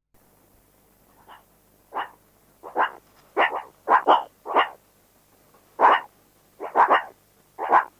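An animal giving a dozen or so short, sharp barks, singly and in quick pairs, at irregular intervals.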